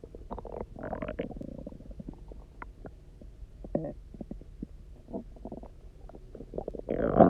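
A person's empty stomach gurgling and rumbling after about 24 hours without food and a lot of water drunk. A run of small gurgles and pops includes a longer gurgle about a second in, and a loud, pitched growl that slides in pitch comes near the end.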